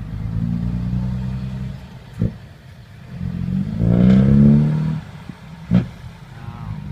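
Six-wheel dump truck's diesel engine revving up in two surges, its pitch climbing and falling back between them, with two short sharp knocks in the lulls.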